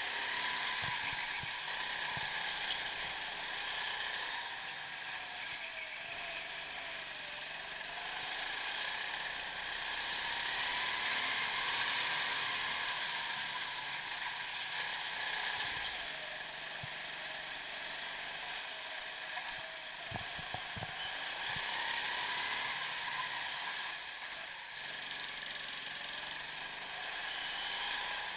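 Go-kart running at speed, heard from on board: its motor pitch rises and falls as it slows for the bends and speeds up again, over a steady rattling, mechanical noise with a few knocks from the chassis.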